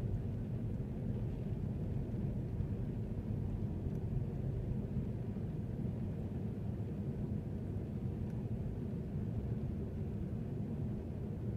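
Steady low rumble of a vehicle driving, road and engine noise heard from inside the cabin.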